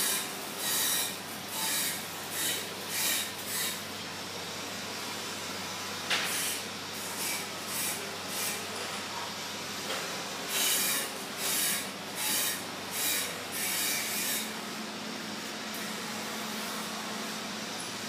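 Repeated rubbing or scraping strokes, about one every half second, in runs broken by pauses, over a steady low hum.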